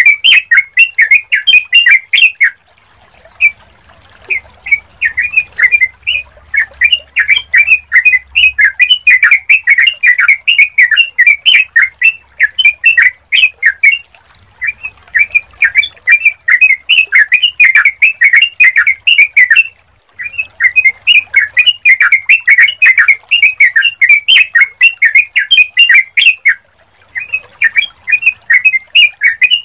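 Yellow-vented bulbul (trucukan) singing: loud bouts of rapid chirping notes, each lasting a few seconds, broken by brief pauses several times.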